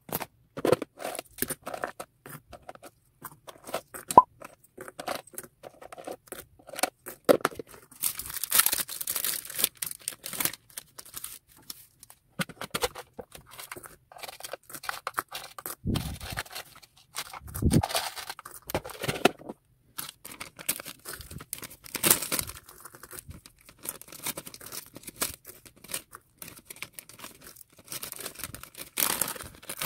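Packing materials handled by hand: a kraft paper envelope rustling and tape tearing, then small plastic fuse-bead keychains clicking together and clear plastic bags crinkling. Irregular rustles and taps, with a longer stretch of tearing about eight seconds in and a couple of dull thumps a little past halfway.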